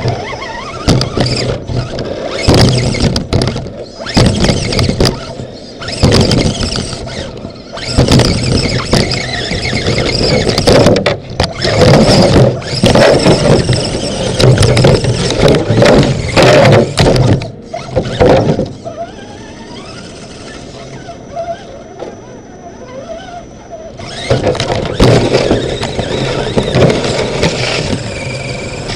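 RC crawler's electric drive motor and gears running in repeated bursts of throttle, heard from inside the body shell, with a quieter spell about two-thirds of the way through before it drives on again.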